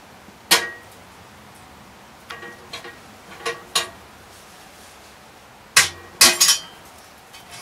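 Metal being handled at a small wood stove: scattered sharp clinks and knocks, some with a short ring. The loudest come about six seconds in.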